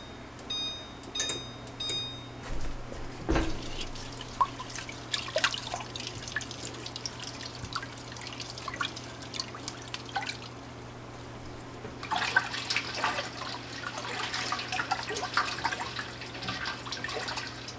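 An electric range's touch controls beep several times as the elements are switched on. Then a silicone spatula stirs pickling brine in a stainless steel pot, making light scrapes, clicks and liquid sloshing that grow busier about twelve seconds in. A steady low hum runs underneath.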